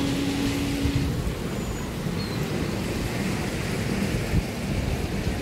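Steady low rumble of outdoor city background noise, with a short steady hum in the first second.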